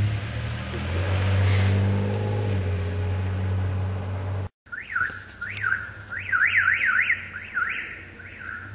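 A steady low hum runs until a break about halfway through. After the break, a car alarm siren wired into the flat-4 trailer-lighting plug sounds in fast up-and-down whoops, several a second, then fades near the end. The alarm is set off by pressing the brake pedal or selecting the left turn signal.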